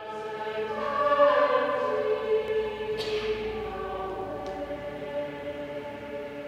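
Choir singing long held chords in the large, echoing space of a cathedral.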